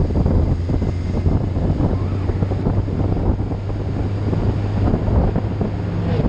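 Wind buffeting the microphone of a moving vehicle, over the vehicle's steady low engine drone.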